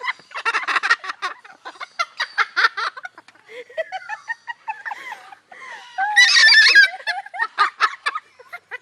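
Umbrella cockatoo imitating human laughter: strings of quick rhythmic ha-ha pulses, some gliding pitched calls, and a loud burst about six seconds in.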